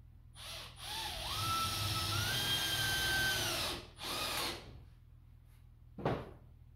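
Handheld power drill run in three trigger pulls: a brief blip, a run of about three seconds whose motor whine steps up in pitch, then another short blip. A single thump comes about two seconds later.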